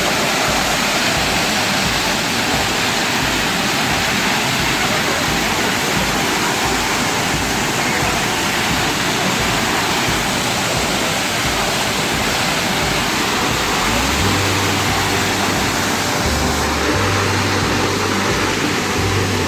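Waterfall rushing: a steady, dense roar of falling water. About two-thirds of the way in, low music notes start under it.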